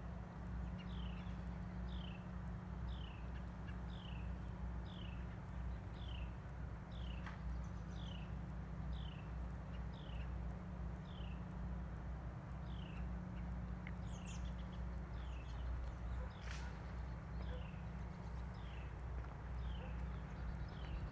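A bird repeating a short, downward-slurred chirp about twice a second, over a steady low hum, with a sharp click about sixteen seconds in.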